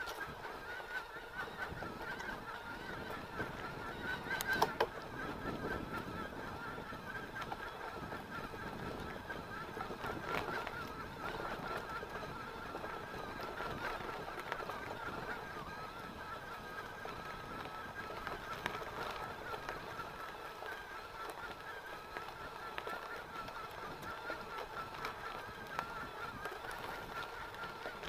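Mountain bike rolling along a dirt trail: bumps and rattles from the ground under a steady, wavering whine, with a sharp knock about four and a half seconds in.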